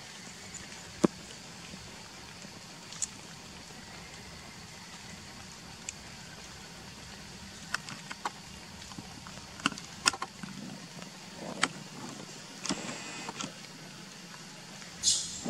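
Outdoor ambience: a steady faint low hum, with scattered sharp clicks and rustles that bunch up in the second half as a macaque moves over dry leaf litter, and a brief high-pitched squeak near the end.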